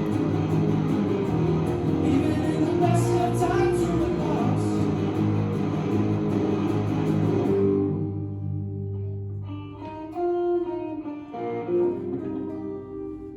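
A live band plays with electric guitar and drums. About eight seconds in, the full band drops out and a guitar picks a few single notes that ring out as the song winds down.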